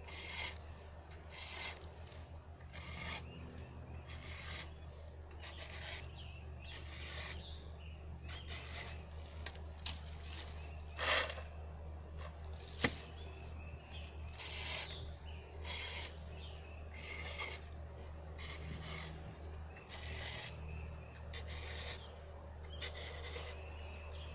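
Flat file scraping across the steel depth gauges (rakers) of a chainsaw chain, one push stroke about every second, lowering the rakers. A single sharp click about halfway through.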